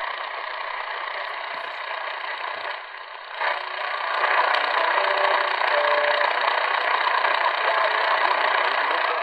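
Medium-wave static hiss from the Radio Shack 2000669's speaker, tuned to 600 kHz. The hiss swells louder about three and a half seconds in as the Tecsun AN-200 passive loop beside it is peaked and couples to the radio's ferrite antenna.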